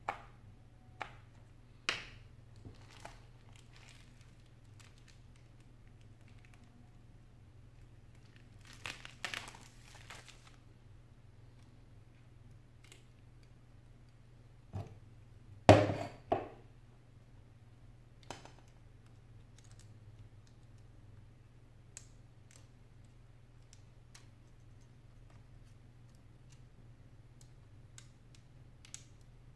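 Scattered handling noises while a replacement iPad 4 touch screen is fitted by hand: bubble-wrap packaging crinkling and rustling, with light taps and clicks as the glass panel and the opened tablet are handled. The loudest is a short cluster of knocks about halfway through, over a faint steady low hum.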